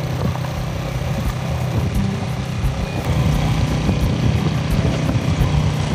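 Motorcycle engine running steadily while the bike is ridden.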